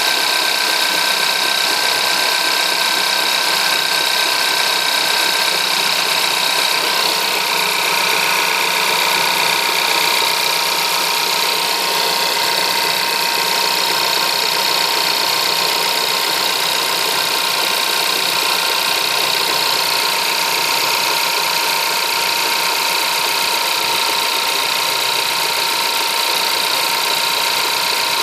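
Skoda Yeti 1.2 TSI four-cylinder turbocharged petrol engine idling cold, running steadily with a knock that the owner cannot place.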